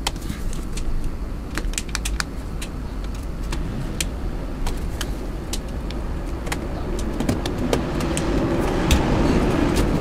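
Clicks and light rattles of a plastic PC front panel and its power button being pressed and handled, scattered irregularly, over a low steady rumble that grows slightly louder near the end.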